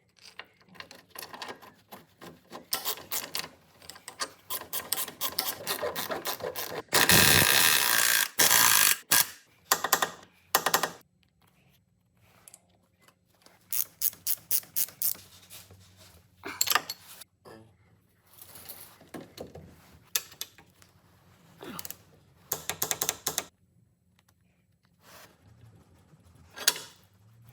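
Hand tools at work on a car: bursts of ratchet-like clicking and clatter, with a louder, rough noise about seven seconds in that lasts around two seconds.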